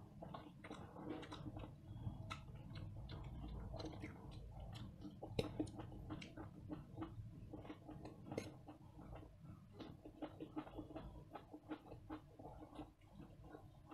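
Two people eating hakka noodles: chewing, slurping and wet mouth smacks, with many short, irregular clicks.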